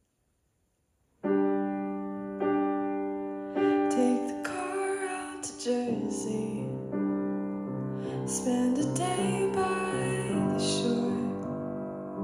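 Solo grand piano playing a slow, soft intro of sustained chords, starting about a second in after silence, the first chords struck about a second apart before the playing fills out.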